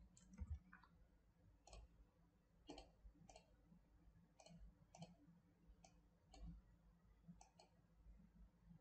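Faint computer mouse clicks, about ten of them scattered irregularly over several seconds, against near silence.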